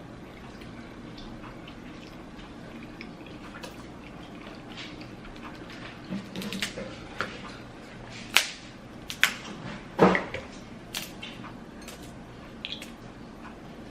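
Close-miked eating sounds: a scattering of sharp, wet clicks and smacks starting about six seconds in, over a steady low background hum.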